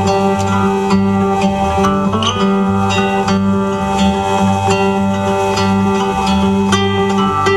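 Instrumental music with plucked acoustic guitar over a steady low bass pulse about twice a second.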